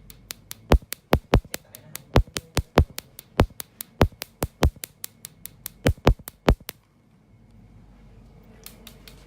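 A rapid run of sharp, uneven clicks, several a second, that stops about two-thirds of the way through. A faint steady hiss follows, and the clicks start again near the end.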